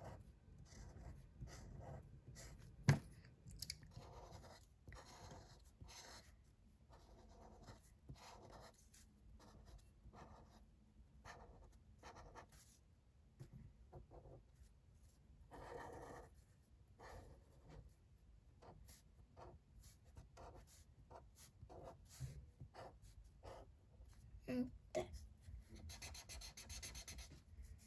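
Felt-tip marker scratching on paper in many quick, short strokes as lines are coloured in, faint throughout. A single sharp tap comes about three seconds in.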